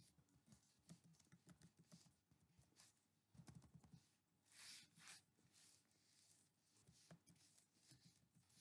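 Faint typing on a computer keyboard: a quick, uneven run of key clicks, with a couple of brief rustling noises about halfway through.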